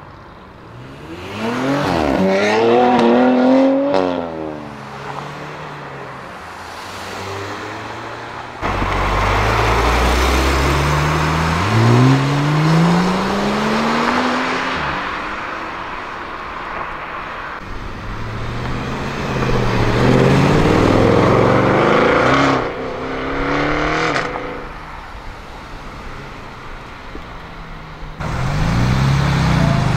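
Several performance cars accelerating hard away one after another. First an Audi RS6 Avant revs up through quick upshifts. Then a Porsche 911 Turbo S Cabriolet pulls away with a long rising engine note, and near the end a Mercedes C63 AMG coupé's engine comes in loud and low.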